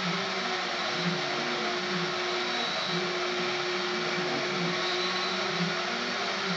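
Desktop CNC router's Kress spindle running at speed while its endmill cuts aluminium profile: a steady whine and cutting noise, with a low pulse coming round about once a second.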